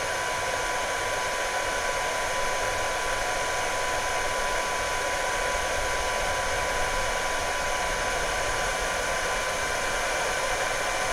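Genmitsu Z5-1 galvo fiber laser running a fill engraving on black acrylic: a steady rushing noise with a thin, even whine.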